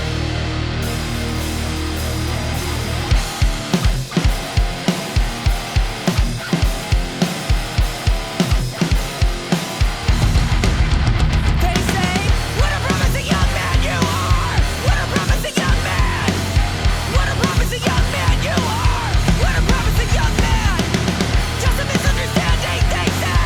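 Loud heavy rock music with drums and guitar. Held low chords open it, a pounding drum beat of about three hits a second comes in about three seconds in, and the full band grows louder and denser about ten seconds in.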